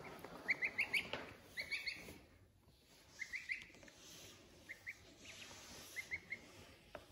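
Waterfowl chicks peeping: short, high, upward-sliding chirps in quick runs of two to four, repeated every second or so.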